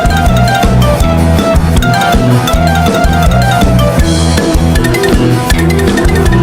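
Loud background music with a steady drum-kit beat and guitar.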